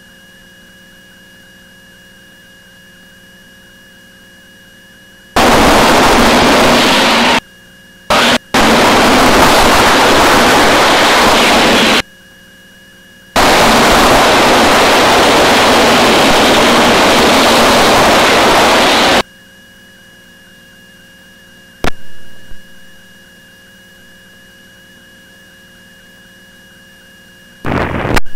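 Aircraft intercom and radio audio feed with a steady faint electrical hum. It is broken by loud blasts of harsh rushing static, each a few seconds long, that cut in and out abruptly. Two sharp clicks near the end fade out quickly.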